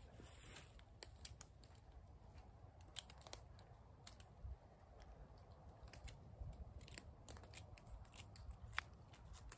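Scattered sharp clicks and snaps of twigs and sticks being handled and broken among dry leaves, at irregular intervals, over a faint low rumble.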